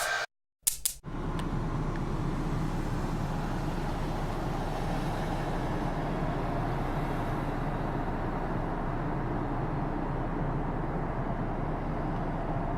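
Car engine running steadily: a low, even hum with a noise over it that does not rise or fall, starting about a second in after a brief break.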